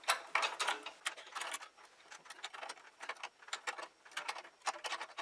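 A screw being turned in by hand with a screwdriver: a run of irregular small metallic clicks and scrapes as it is driven a few turns into the mitre saw's replacement part.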